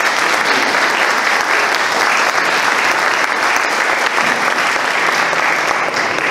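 Audience applauding: the steady clapping of many hands.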